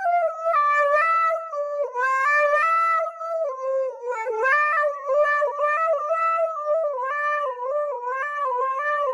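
A single reedy melody line, like a wind instrument played solo, wavering and stepping in pitch with a few short dips.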